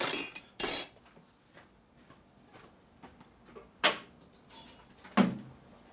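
Metal hand tools clinking and clattering as they are handled. There is a burst of clatter at the start, a quiet stretch, then a sharp clink about four seconds in and a few more knocks near the end.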